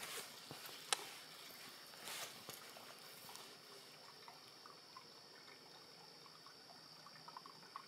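Water dripping, with a few sharp knocks in the first seconds and a steady high-pitched hiss.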